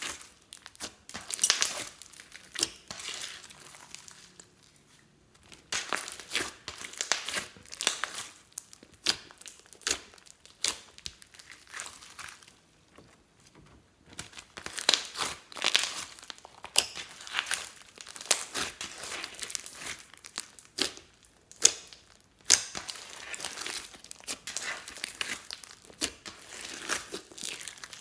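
Slime with floam beads squeezed and stretched by hand, crackling and popping in quick runs of clicks, with two short pauses.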